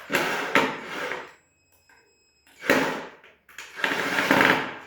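Scraping and rustling handling noises in three bursts as wire cores are fitted into terminals during electrical wiring work, with a quiet gap in the middle.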